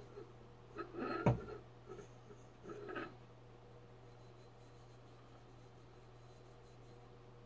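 Handheld scrub pad rubbing and scraping on a silver-plated metal goblet in a few short strokes over the first three seconds, with a sharp knock about a second in. After that only a faint steady hum is left.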